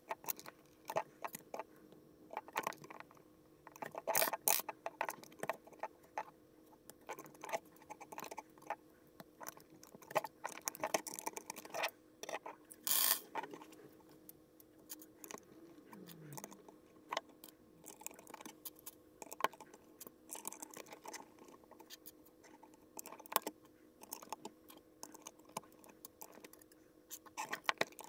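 Plastic LEGO bricks clicking and clattering as they are picked from a loose pile and pressed onto a baseplate: irregular sharp clicks, some in quick clusters, over a faint steady hum.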